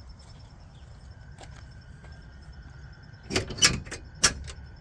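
Chicken coop door being opened to check for eggs: a few sharp knocks and rattles in quick succession about three seconds in, after a quiet stretch.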